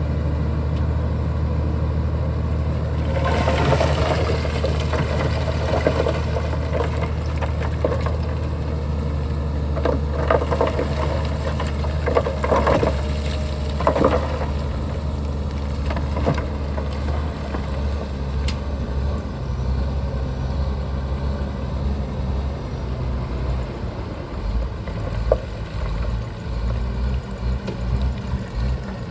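Shantui bulldozer's diesel engine running steadily under work, with bursts of clatter in the first half.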